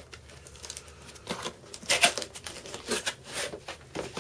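Cardboard box being opened by hand: packing tape tearing and the cardboard flaps scraping and rustling, in several short bursts, the loudest about two seconds in.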